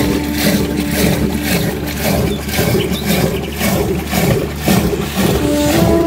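Background music: long held flute-like notes over a steady beat. The held note drops out about two seconds in and a new one comes in near the end.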